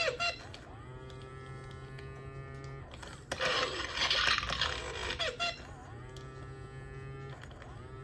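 Mattel D-Rex robotic dinosaur toy playing its electronic dinosaur sounds through its small speaker: pitched calls with a low hum underneath, and a loud rough roar in the middle lasting about two seconds.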